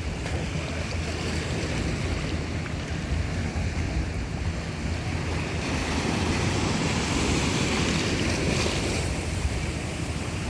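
Sea waves washing in, with wind rumbling on the microphone; a wave surges louder from about six seconds in and eases off near the end.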